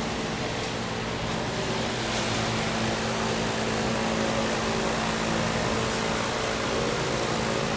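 Steady mechanical hum over an even hiss, like a running fan or air-conditioning unit, unchanging throughout.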